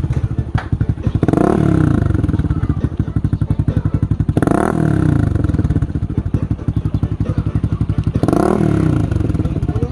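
Kawasaki Fury 125's single-cylinder four-stroke engine idling through a clone Yoshimura Alpha exhaust with its silencer insert fitted. It is revved three times, about a second in, midway and near the end, each rev rising in pitch and dropping back to idle.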